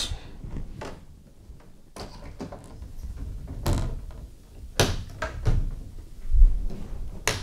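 Ultimaker Air Manager's clear acrylic cover being lowered and fitted onto the printer's top mounting bracket: several plastic knocks and a heavier low bump, then a sharp click near the end as the cover snaps into place once it is positioned properly.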